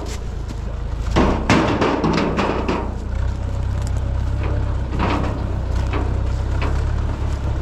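Stones clattering as they are tossed one by one into a steel tractor trailer bed, with a steady low hum from the tractor engine idling.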